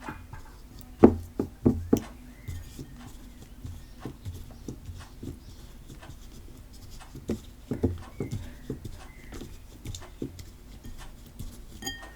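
Homemade PVA-glue slime being kneaded and pressed hard by hand, giving irregular wet squelches and sticky pops, most dense about a second in and again near the middle; the slime is turning stretchy as the activator works in.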